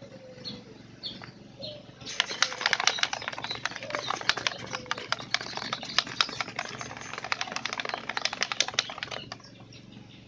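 A dense, irregular run of sharp clicks and crackles, starting about two seconds in and stopping shortly before the end, over faint birds chirping.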